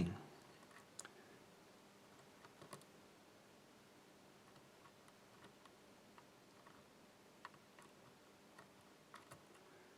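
A handful of faint, irregular clicks of a hook pick working the pins of a 5-pin challenge lock under light tension.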